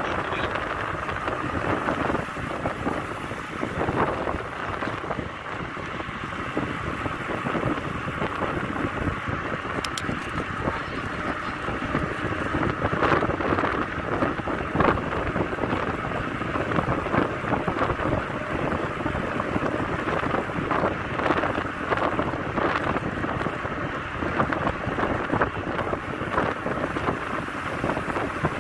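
Wind rushing over the microphone of a camera moving with a bicycle along a paved road, a steady rush with fluttering gusts.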